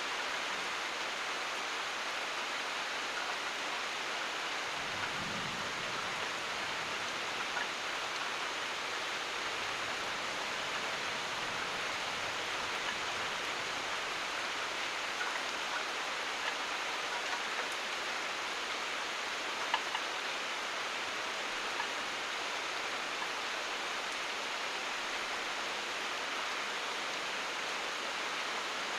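Steady rain falling, an even hiss with a few single drops ticking louder, one most plainly about twenty seconds in.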